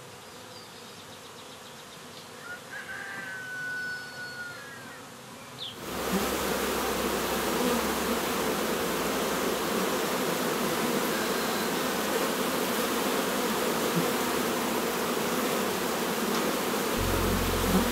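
Honeybees buzzing in large numbers at the entrances of old wooden hives, a dense steady hum that swells up loudly about six seconds in. A few short bird chirps sound over the quieter opening.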